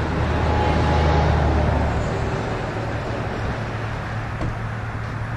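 A motor vehicle's engine running steadily as a low hum, with road and street noise. It eases off a little after about two seconds.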